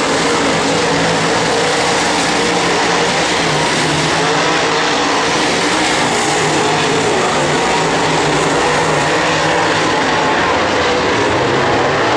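Pack of dirt late model race cars running laps at speed, their V8 engines loud and steady, with several engine notes overlapping and wavering in pitch as the cars pass.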